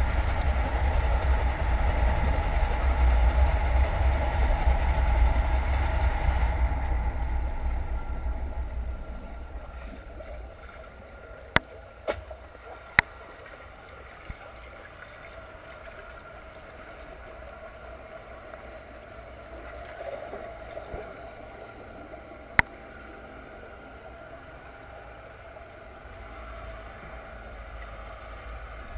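Muffled underwater water noise heard through a GoPro's waterproof housing: a low rumble that is loud for the first several seconds and then fades to a faint steady hiss. There are a few sharp clicks around twelve seconds in and one more a little past twenty seconds.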